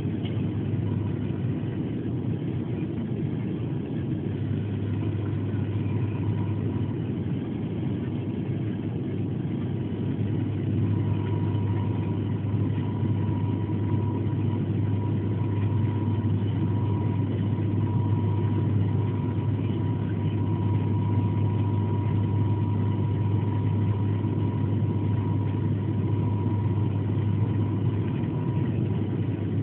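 Steady drone of a turboprop airliner's engines and propellers heard inside the cabin on approach with the landing gear down, with a strong low steady hum and a fainter higher tone. The hum grows a little stronger about eleven seconds in.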